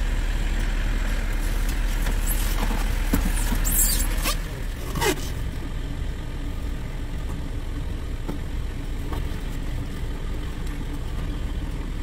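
A semi-truck's diesel engine idling as a steady low rumble that eases a little about four seconds in. Over it come a few knocks and rubs of a compact refrigerator being shifted into place in the cab.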